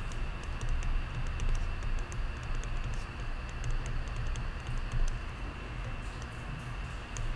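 Small, irregular clicks and taps of a stylus on a pen tablet while equations are handwritten, over a steady low rumble and a faint high whine.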